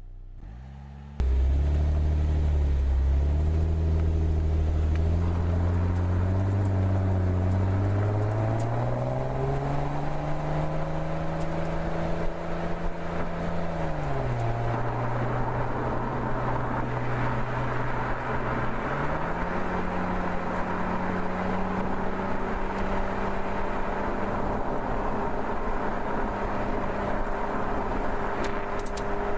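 Mercedes-Benz SL's engine under way, starting abruptly about a second in. Its pitch climbs steadily for about twelve seconds as the car accelerates, drops at a gear change, rises again a few seconds later and then holds steady at cruising.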